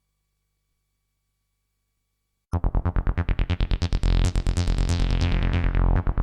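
Near silence, then about two and a half seconds in, synthesizer-led electronic music starts suddenly with a fast pulsing beat and a falling sweep.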